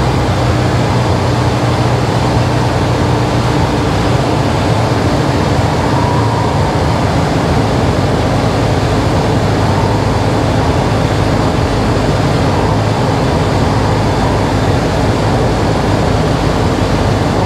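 Robin DR400 light aircraft's piston engine and propeller running steadily in flight, heard from inside the cockpit as an even drone with a low engine hum.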